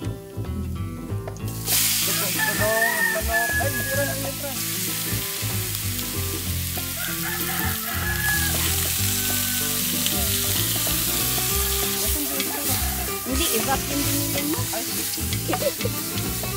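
Meat pieces frying in hot oil in a steel pot over a wood fire, a steady hissing sizzle that starts about two seconds in, with the scrape of a spatula stirring them.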